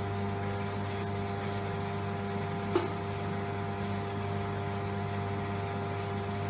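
ZDS Plug&GO 5000 electronic pump with its single-phase water-cooled motor, running with a steady hum against a just-closed outlet as it builds pressure in the tank toward its cut-out. One sharp click sounds about three seconds in.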